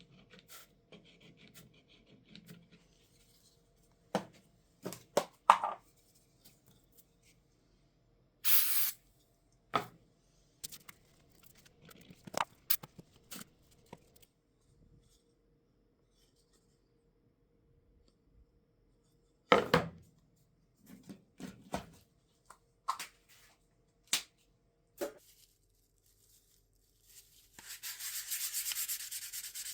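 Scattered knocks and clicks of small wooden parts being handled on a bench. Near the end a steady rasping rub begins, typical of sandpaper worked over wood.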